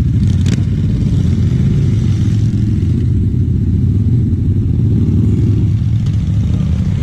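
A motorcycle engine idling steadily, a loud low rumble with rapid even pulsing. A short click comes about half a second in.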